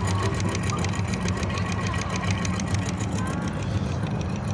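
Rapid, even mechanical clicking, about eight clicks a second, fading out near the end, over a steady low hum.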